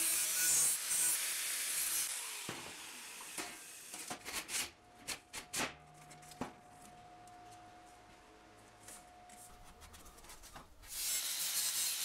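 Metal shop work on a steel shroud: a rasping hiss for the first couple of seconds and again near the end, with a scatter of sharp metal clicks and knocks in between.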